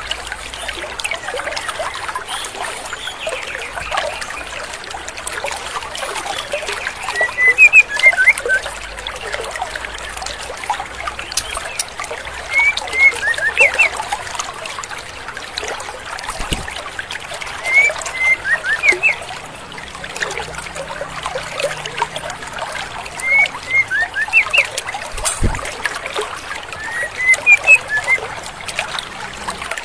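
Female white-rumped shama calling in short clusters of quick, high notes, repeated about every five seconds, five times in all, over the steady rush of a stream.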